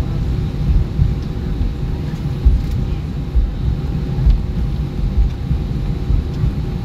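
Airbus A320 cabin noise as the airliner rolls along the ground: a loud, steady low rumble from the engines and the wheels on the pavement, with small irregular bumps and a faint steady hum on top.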